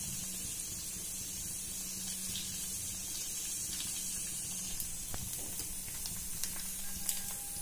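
Bread slices deep-frying in hot oil, a steady sizzle. A few light clicks of the metal slotted spoon against the pan come in the second half.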